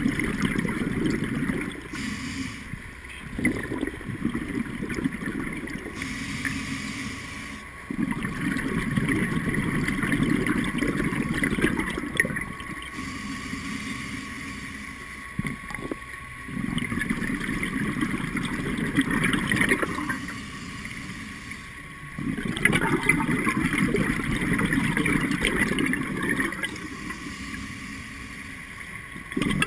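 Scuba regulator breathing heard underwater through a camera housing: long gurgling rushes of exhaled bubbles, each a few seconds long, alternating with quieter inhalation hiss in a slow, regular cycle.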